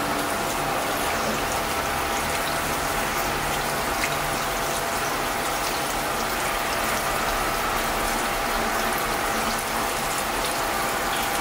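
Bathroom sink faucet running steadily, its stream splashing over a glue trap held under the water in gloved hands.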